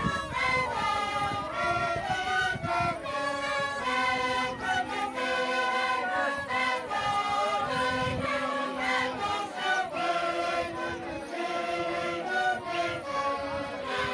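Andean carnival music from a large group of performers in unison: a chant-like tune of held notes that changes pitch every second or so, without pause.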